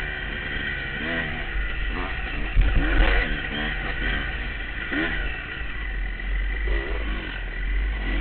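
A 2003 Honda CR250R two-stroke dirt-bike engine, heard from on the bike, revving up and down again and again as it rides a trail, over a low rumble of wind and bumps on the microphone.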